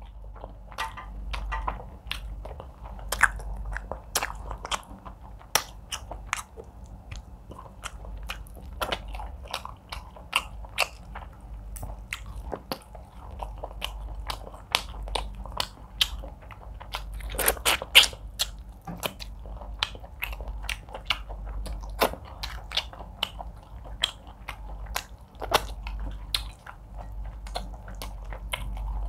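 Close-miked mouth sounds of a person eating egusi soup with fufu and meat by hand: steady chewing with many short wet clicks and smacks, a little busier about two-thirds of the way through.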